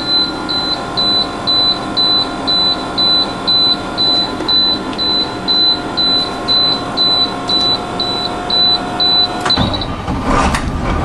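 Bus dashboard warning alarm beeping at a high pitch about twice a second over a steady electrical whine; both stop about nine and a half seconds in, and a short clatter follows near the end.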